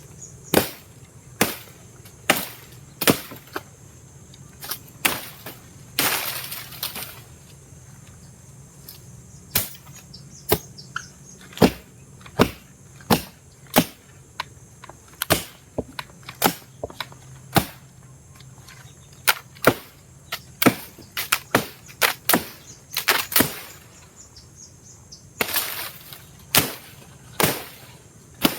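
Irregular chopping strokes, about one or two a second, hacking at a fallen coconut palm and the branches it crushed. A longer rustling swish comes about six seconds in and again near the end, as fronds are dragged or snapped.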